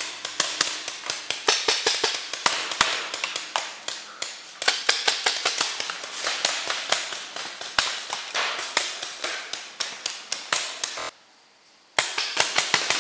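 Paintball markers firing rapid strings of sharp pops, several shots a second. The sound cuts out for about a second near the end.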